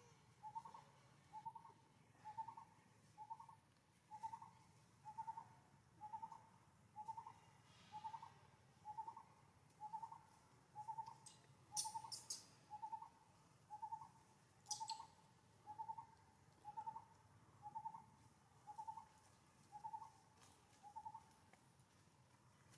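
A bird repeating one short note about once a second in a long, even series, faint, with a couple of small clicks partway through.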